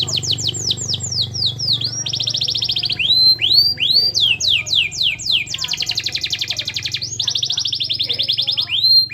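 Domestic canary singing a long unbroken song: fast rolling trills alternate with runs of quick falling and rising whistled notes.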